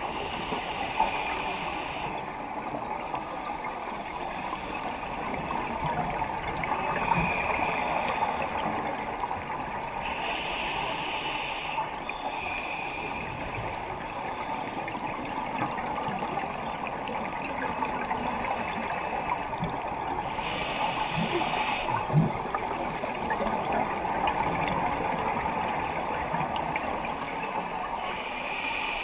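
Underwater ambience heard through a camera housing: a steady crackling hiss, broken every several seconds by the gurgle of a scuba diver's exhaled bubbles from the regulator.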